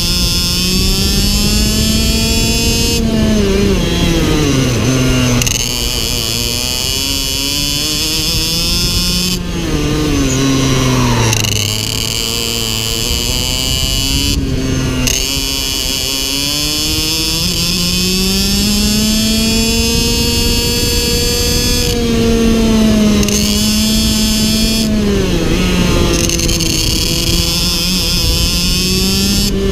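IAME X30 Super 175 cc two-stroke shifter kart engine, heard from on board, revving up through the gears and then dropping in pitch in steps as the driver lifts off and downshifts for corners; this happens several times, about five or six slowdowns in all.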